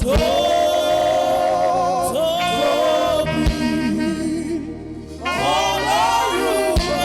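Gospel song sung over steady backing instruments, voices holding long, wavering notes and gliding between them. The singing dips briefly about five seconds in, then comes back.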